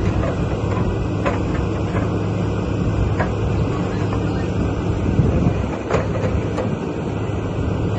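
Takeuchi excavator's diesel engine running steadily under load, with scattered sharp knocks and cracks as it breaks up the building.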